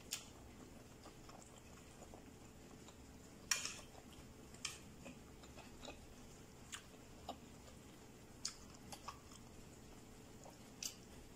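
Faint, scattered clicks and taps of a spoon and fork against a white plate as pasta is eaten, the loudest about three and a half seconds in.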